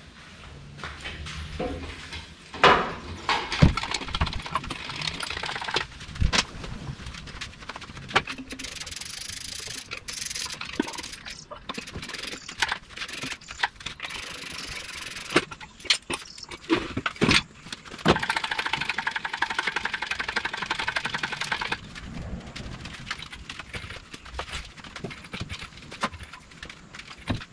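Metal clanks and chain rattling from a shop engine crane and the chain holding a hanging V8 engine as it is manoeuvred toward the truck, with sharp knocks scattered throughout and a few seconds of steadier rattling about two-thirds of the way through.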